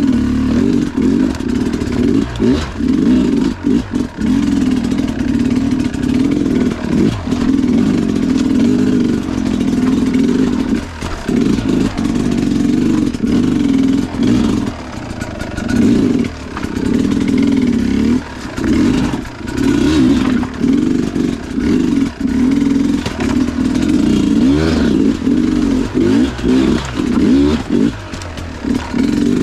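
Two-stroke Sherco enduro dirt bike engine ridden slowly over rough ground, the throttle opened and closed again and again so that the engine rises and falls in short bursts, with some clatter.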